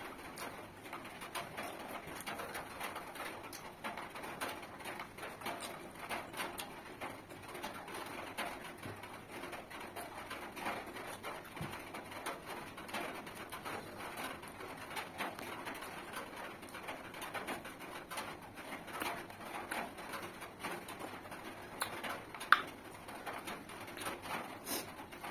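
Close-up eating sounds: chewing and mouth smacking, with fingers working rice and curry on a banana leaf, a steady run of small wet clicks. A sharper click stands out near the end.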